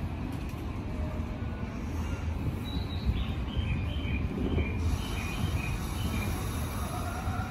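JR East E233-series Chūō Line electric train standing at the platform, its equipment giving a steady low hum over the station's noise. A faint run of short high tones comes through in the middle.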